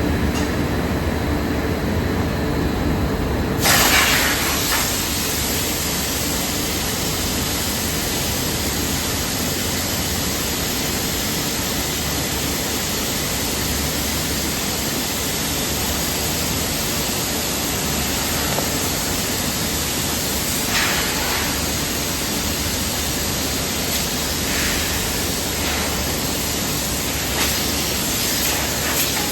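Steady factory machinery noise with a low rumble, joined about four seconds in by a loud, even rushing hiss like a blower or air jet that holds steady.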